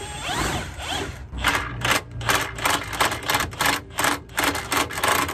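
Cordless drill spinning up with a rising whine, then a rapid run of sharp clicks, about four or five a second, as it drives a bolt up into a bolt hole, cutting threads into it.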